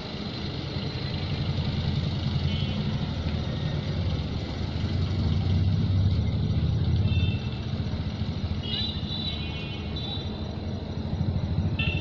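Diesel locomotive engine running at a distance with a low, pulsing rumble. It swells about halfway through, then drops off suddenly and builds again near the end.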